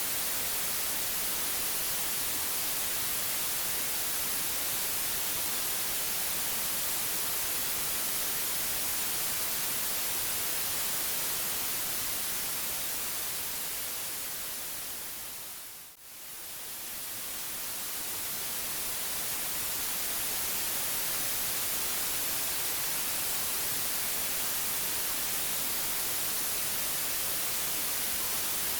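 Steady white-noise hiss, even across the whole range and brightest in the highs. About halfway through it fades down smoothly and swells back up over a few seconds.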